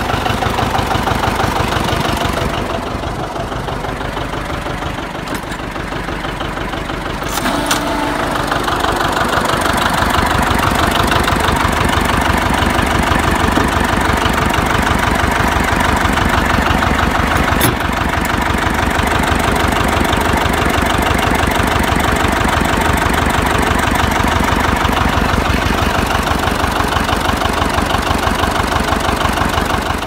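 Old John Deere two-cylinder tractor engine running just after starting, warming up, with an even fast putt-putt beat. It gets louder about eight seconds in and then runs on steadily.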